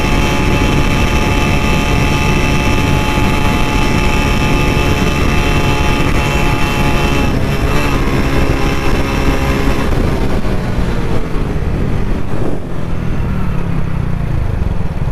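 Modified old Hero Honda Splendor single-cylinder four-stroke motorcycle engine running at steady cruising speed through its aftermarket exhaust. The note changes about halfway through, then falls in pitch near the end as the bike slows down.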